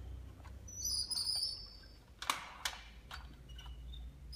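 Light clicks and knocks of a plastic toy forklift being handled on a wooden floor, two sharp clicks a little past halfway, with a brief high chirping sound about a second in.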